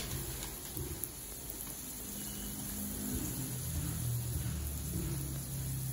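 Hot oil sizzling steadily around three meat-filled pastries (irachi vada) deep-frying in an iron kadai, with a faint low hum underneath.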